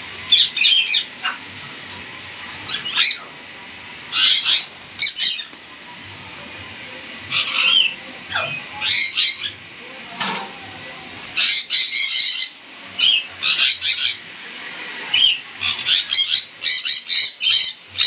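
Caged parrots giving loud, shrill squawks and screeches in short clusters, coming thicker in the second half.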